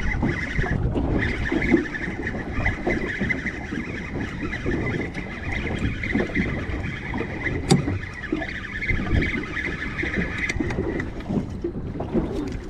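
Fishing reel being wound in with a fish on the line: a steady high whir from about a second in that stops near the end. Under it, wind and water on a small boat, and one sharp click partway through.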